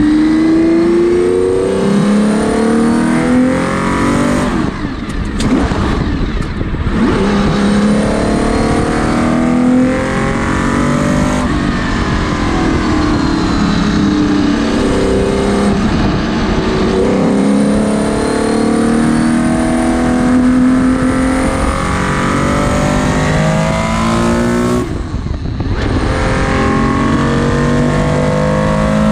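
Porsche 917/10's air-cooled flat-12 racing engine heard from the cockpit under full racing load, its revs climbing again and again through the gear changes. The engine note drops away briefly about five seconds in and again near the end, then picks up.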